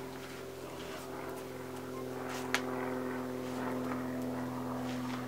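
A single sharp slap about two and a half seconds in, a climber's hand striking a granite hold, over a steady low drone like a distant engine.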